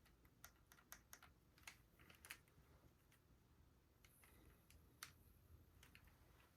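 Faint, irregular plastic clicks from a LEGO-brick Glock 19 model being handled, bunched quickly in the first couple of seconds and then sparser.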